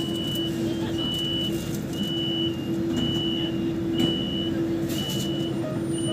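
Door-warning beeper of a driverless people-mover train standing at a station platform, sounding a short high beep about once a second, over a steady low hum heard inside the car.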